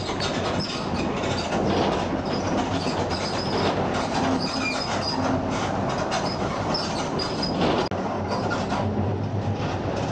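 Mercedes-Benz OF 1721 BlueTec 5 bus under way, its diesel engine held at mid revs with a growl from the differential. Steady running noise is mixed with constant rattling of the body and short high squeaks.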